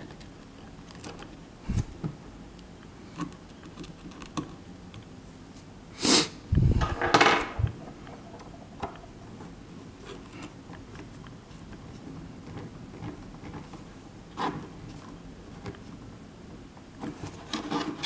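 Small screwdriver work and handling of a Palm M515 PDA's back casing on a wooden tabletop: scattered light clicks and taps as the case screws are driven back in. About six to seven and a half seconds in, a louder knock and rubbing clatter from the device or tools being handled.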